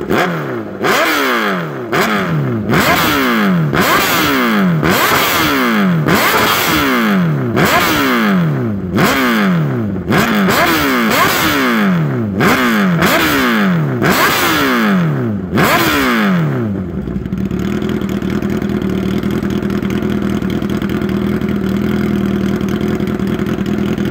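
A 2014 Honda CBR1000RR's inline-four engine, very loud through an Austin Racing GP2R carbon exhaust with no baffles and no dB killer, is free-revved about a dozen times, about one sharp rev a second, each falling straight back. About 17 seconds in the revving stops and the engine settles into a steady idle.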